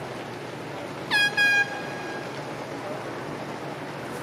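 A horn gives two short, loud, high-pitched honks about a second in, over steady outdoor background noise.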